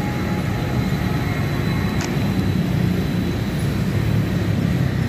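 INKA battery tram prototype rolling past on the rails: a steady low rumble of its running gear, with a faint steady high tone and a single light click about two seconds in.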